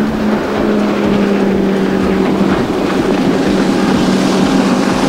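Bass boat's outboard motor running at a steady high speed, with wind and water rushing past and the hull thudding over the chop.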